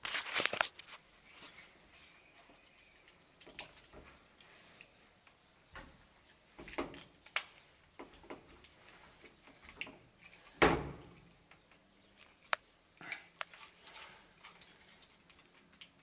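Hands working stiff electrical wires into flush-mounted plastic wall boxes with a screwdriver: scattered scrapes, clicks and rustles of wire and tool against plastic. The loudest moments are a rustling cluster at the start and a thump about ten and a half seconds in.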